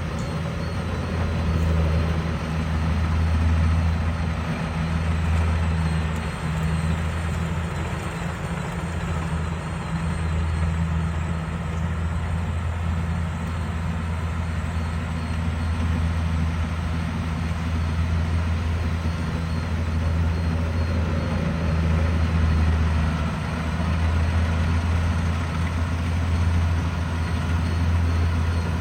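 Rice combine harvester's diesel engine running steadily while harvesting, a deep, even drone that swells and eases slightly.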